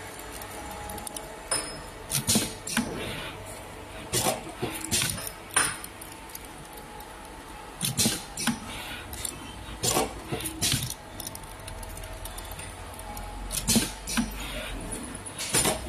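JHS-6 wire brush making machine running, with irregular sharp metallic clicks and clanks roughly once or twice a second over a steady low hum.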